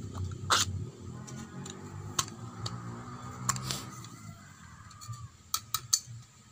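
Scattered clicks and knocks of angle-grinder parts being handled and fitted back together during reassembly, over a faint low hum that fades out about four seconds in.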